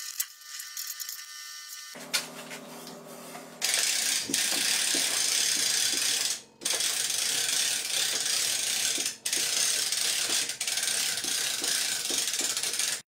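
Rapid ratchet clicking from a hand ratchet wrench tightening bolts on a welded steel frame. It starts loud about a third of the way in and breaks off briefly twice.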